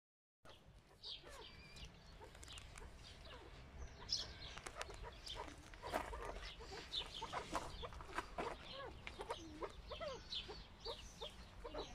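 Chukar partridges calling in a run of short clucks and chirps that come thicker from about four seconds in.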